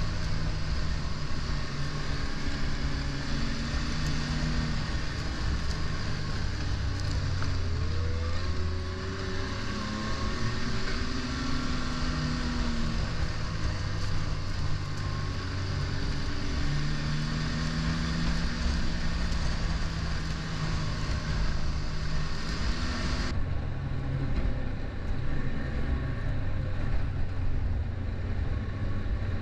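Ski-Doo MX Z 1200 snowmobile's four-stroke three-cylinder engine running at trail speed, heard from the rider's seat, its pitch rising and falling with the throttle. A rushing hiss of wind and track runs underneath and drops away abruptly about 23 seconds in.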